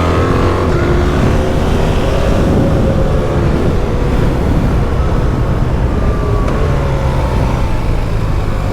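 BMW GS motorcycle's boxer-twin engine running hard on a track lap, its pitch rising and falling with the throttle and gear changes, over a steady rush of wind and road noise from riding at speed.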